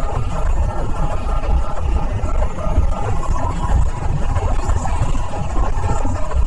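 A fly buzzing without a break, its pitch wavering up and down.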